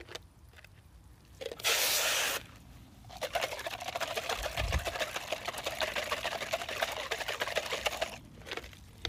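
A short rush of water from a garden hose into a small container, then a bicycle chain shaken hard inside the container of rinse water for about five seconds: a fast, dense metallic rattle and slosh.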